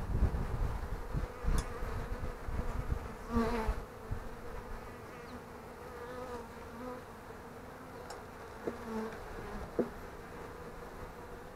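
Honeybees buzzing steadily over an open hive, with a few knocks and scrapes as a metal frame grip works against the wooden frames, the loudest a few seconds in.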